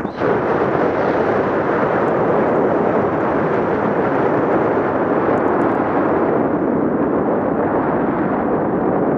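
Steady rush of wind over an action camera's microphone as a snowboard runs fast through powder snow. The sound turns duller after about six seconds.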